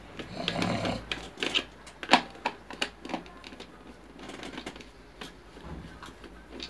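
Screwdriver unscrewing screws from the plastic base of an electric citrus juicer: irregular sharp clicks of the metal bit in the screw heads, with light scraping and rustling as the plastic housing is handled. The loudest clicks come about two seconds in.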